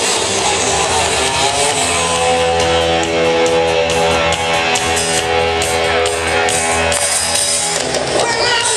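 Live rock band playing an instrumental passage on electric guitars and drum kit, with a long held chord from about two seconds in until near the end.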